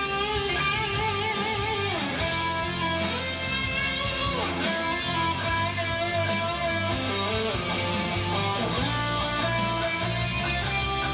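Electric guitar playing a slow melodic lead through an amplifier, with held notes in wavering vibrato and notes sliding down in pitch, over low sustained notes.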